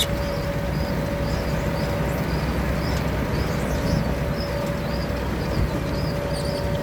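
Potato harvesting machinery running steadily in the field: a constant engine and machine drone with a held whine, and a faint high squeak repeating about twice a second.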